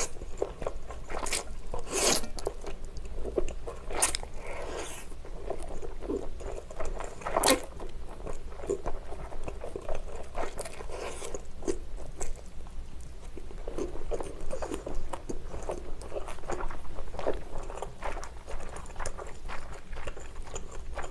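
Close-up eating sounds: a person slurping and chewing japchae's wide glass noodles, with many short wet smacks and clicks from the mouth.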